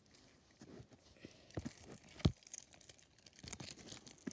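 Hands squeezing and pressing slime studded with metallic foil confetti: irregular crinkling and crackling, with one sharper, louder crackle a little past halfway.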